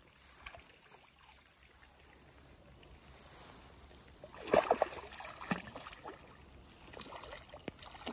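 Faint trickling water, then a cluster of sharp splashes about halfway through and a smaller one a second later, as a hooked carp thrashes at the surface while being brought into the landing net.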